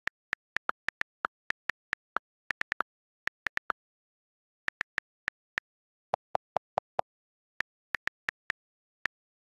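iPhone on-screen keyboard click sounds as a message is typed: short, sharp ticks in uneven bursts at typing pace. About six seconds in comes a quick run of five lower-pitched clicks, the sound of the delete key erasing letters.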